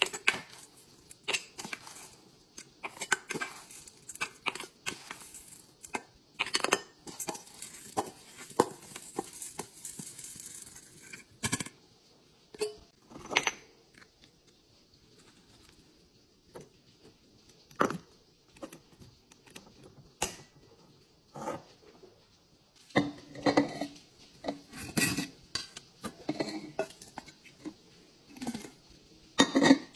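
Scent booster beads scooped with a metal scoop from a steel bowl and poured into a glass jar: a run of clinks and taps with a few seconds of beads pouring and rattling. Later, scattered taps, then a dense run of clinks of glass and metal near the end.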